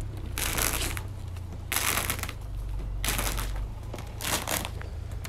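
Footsteps on sheets of 4 mm bitumen waterproofing membrane: four scuffing steps a little over a second apart.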